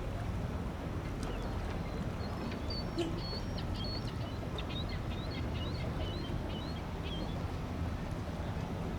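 Short, high bird chirps in a quick run from about two to seven and a half seconds in, over a steady low rumble.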